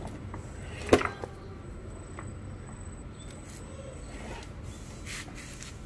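A single sharp knock about a second in, followed by a few faint clicks, over steady background noise.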